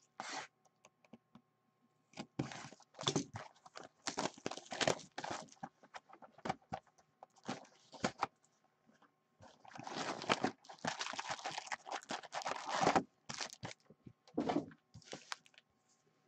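A 2019-20 O-Pee-Chee Platinum hockey card hobby box being unwrapped and opened by hand, and its foil packs taken out and stacked. Irregular crinkling, rustling and light tapping, busiest from about ten to thirteen seconds in.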